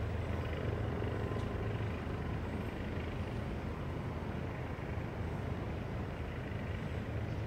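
Steady low background rumble with a faint hiss and no distinct events.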